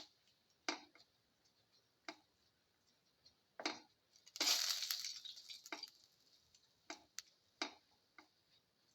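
Cumin seeds being sautéed in oil in a pan: scattered sharp clicks and taps, with a brief noisy rush about four and a half seconds in.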